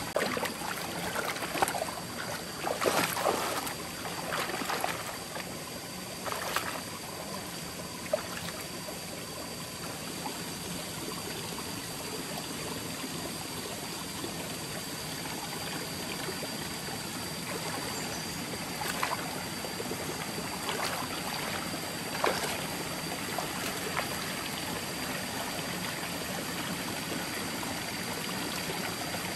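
Shallow forest stream running steadily, with splashing from wading feet and hands in the water during the first several seconds and a few more sharp splashes or knocks later on. A thin, steady high tone sits over it throughout.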